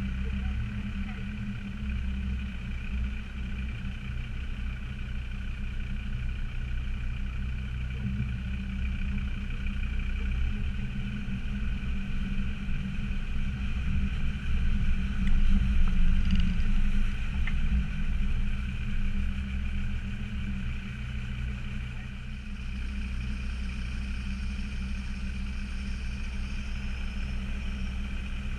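Land Rover Discovery Td5's five-cylinder turbodiesel engine running steadily while driving an off-road track, growing louder for a few seconds around the middle under more throttle, then easing back.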